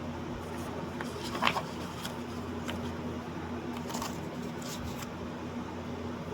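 Steady low hum with a few short rustles and clicks, the loudest about a second and a half in.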